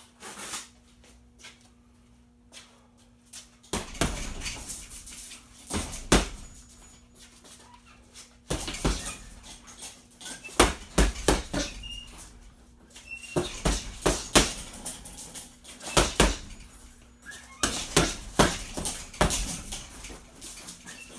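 Boxing gloves punching a hanging heavy bag in quick flurries of combinations, starting about four seconds in, with short pauses between the flurries.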